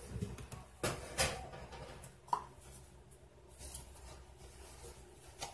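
Quiet kitchen handling noises: a few light knocks and taps, one about two seconds in with a brief ringing tone.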